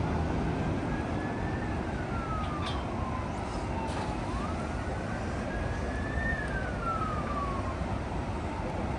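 A siren wailing, its single tone rising and falling slowly, about one full rise and fall every four to five seconds, over a steady rushing background noise.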